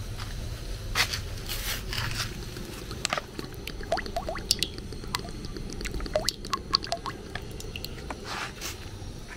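Wet food being handled in cookware: squishing and scraping, with scattered sharp clicks and light knocks.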